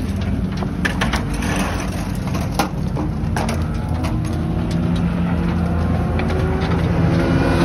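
A steady low engine drone with scattered sharp clicks and clunks from pit-stop work on the race car, the loudest knock about two and a half seconds in.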